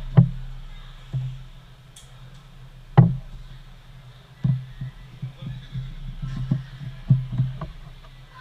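A series of irregular dull knocks and taps, the sharpest about three seconds in, over a steady low hum.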